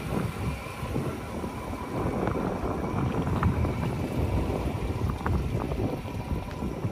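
Wind buffeting the microphone, an uneven low rumble that swells and fades, with a few faint small knocks.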